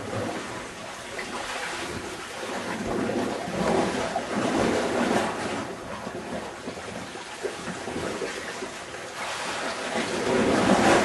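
Wind and sea surf: an even rushing that swells about four to five seconds in and again near the end.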